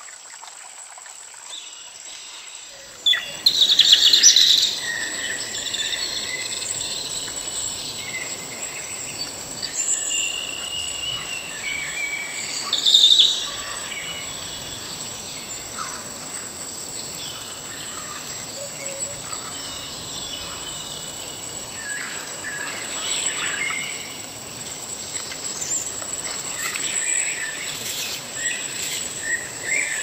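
Forest ambience: birds singing and calling in scattered bursts, with the loudest calls about four seconds in and near the middle, over a steady high insect trill and a broad rushing noise of wind and falling water that comes in about three seconds in.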